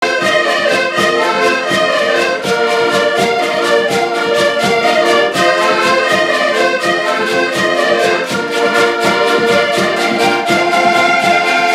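Several accordions play a lively folk tune in full chords, with a large double-headed bass drum beating a steady rhythm under them.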